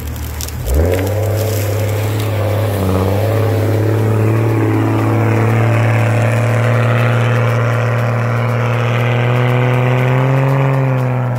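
Jeep engine revving up hard about a second in and held at high, nearly steady revs under load as it drives through a deep ditch, the pitch edging up near the end before it stops abruptly.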